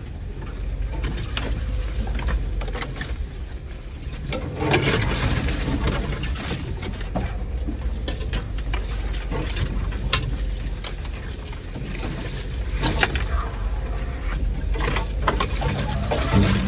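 An off-road vehicle's engine running steadily at low trail speed, with branches and brush scraping and snapping against the body several times.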